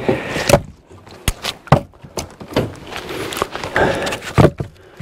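Split firewood logs knocking against one another as they are handled and stacked: a string of irregular sharp wooden knocks with some rustling between them.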